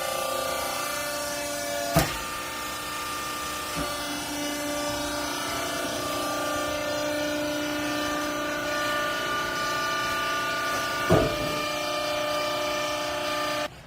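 Hydraulic baling press for used clothes running, its pump motor giving a steady whine. Two sharp metallic knocks come about two seconds in and near the end, with a lighter one in between, and the running sound stops abruptly just before the end.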